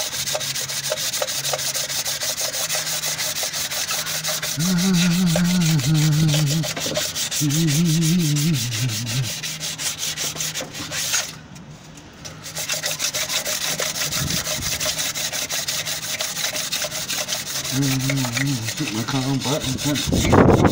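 Fast back-and-forth hand scraping and sanding on the top face of a Morris Minor's engine block, cleaning off old head-gasket residue and carbon. The rubbing pauses briefly midway. A man hums a few notes twice, and there is a sharp knock at the very end.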